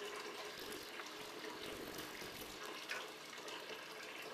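Hot water running steadily from a sink faucet into a bucket, filling it.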